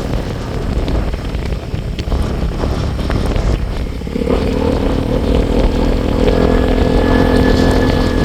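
Motorcycle riding along with wind buffeting the microphone. About four seconds in, the engine's steady note comes up clearly over the wind noise.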